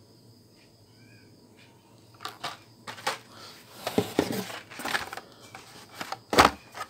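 Plastic blister cards of Hot Wheels cars being handled and pulled out of a cardboard box: faint at first, then from about two seconds in a run of irregular clicks and rustles, with the loudest knock near the end.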